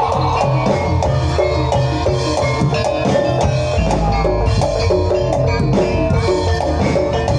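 Live Javanese gamelan-style accompaniment to a barongan dance: quick, repeated notes on tuned metal percussion over steady drum strokes. A held high note breaks off at the very start.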